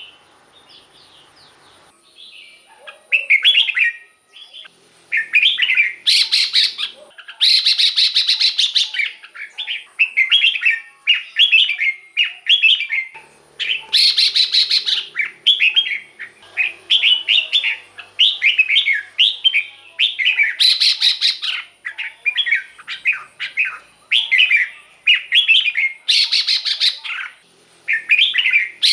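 Red-whiskered bulbul singing: short, quick whistled phrases given one after another, with several louder, harsher bursts among them. The song starts after a couple of seconds of quiet. A faint steady high-pitched tone runs underneath.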